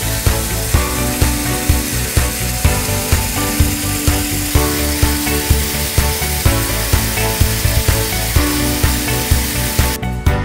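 Background music with a steady beat, over the steady noise of an electric grain crusher grinding grain through its screen; the grinding noise stops near the end.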